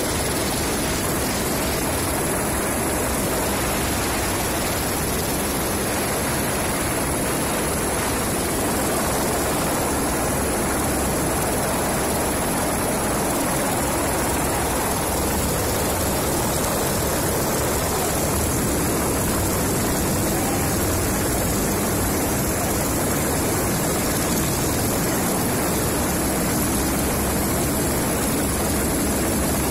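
Aircraft engine and rotor noise heard from on board in flight, steady and unchanging throughout.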